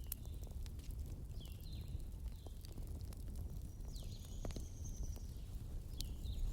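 Ambience of small birds chirping in short falling calls, one held higher note in the middle, over the scattered pops and crackles of a wood fire and a steady low rumble.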